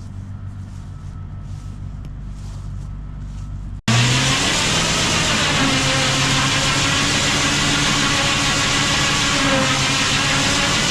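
Engine running at a steady idle with a low hum. About four seconds in, a sudden cut brings a much louder, closer engine running steadily.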